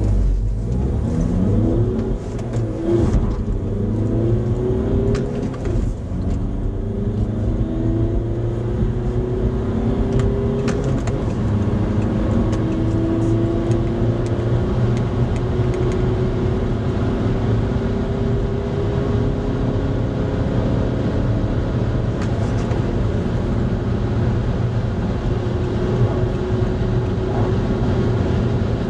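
Audi A3 Sportback 2.0 TDI common-rail diesel accelerating hard, heard from inside the cabin. The engine note rises and drops back at each of several quick shifts of the six-speed manual in the first six seconds, then climbs slowly and steadily in a high gear over constant road and wind noise.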